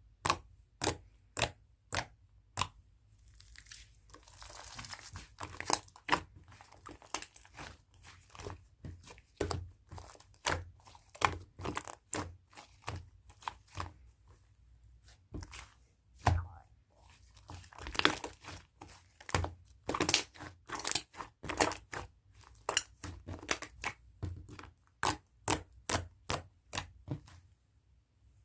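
Slime being squished and poked by hand, making a long run of sharp pops and clicks as air pockets burst, at times about two a second, with stretches of crackling as it is stretched and folded.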